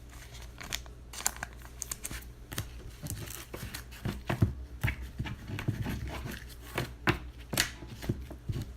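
A trading card pack wrapper being torn open and crinkled, and the cards inside handled, with irregular scratchy rustles and sharp clicks throughout.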